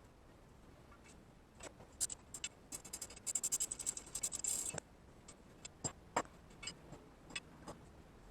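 Small metal parts and tools handled at a workbench: scattered clicks and clinks, with a quick run of rapid jangling ticks about two to five seconds in.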